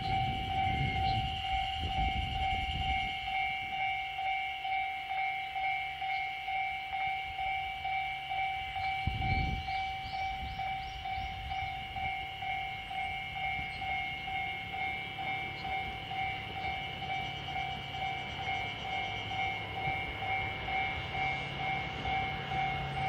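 DF200 diesel-electric freight locomotive hauling a container train on its slow approach, its engine a low steady drone, with a brief low rumble about nine seconds in. Over it a loud, evenly pulsing electronic ringing tone repeats throughout.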